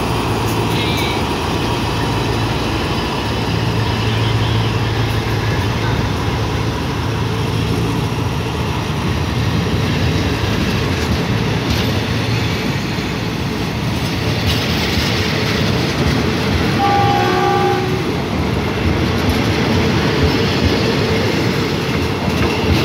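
Passenger coaches of a diesel-hauled train rolling past close by as it pulls away from a halt: a steady rumble and clatter of wheels on the rails. A low drone fades out about halfway through, and a short horn note sounds about seventeen seconds in.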